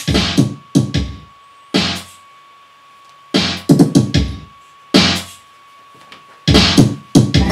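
Electronic music played live by finger-triggering samples on an Akai MPK49 controller. Short hits, some pitched and some percussive, come in uneven clusters with short near-silent gaps between them.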